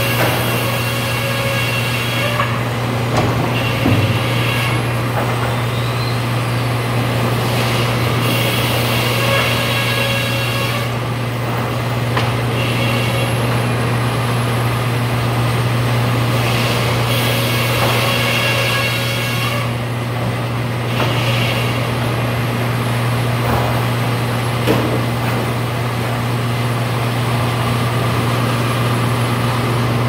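Helle circular sawmill running: a steady, loud low machine hum with a hiss that swells and fades several times.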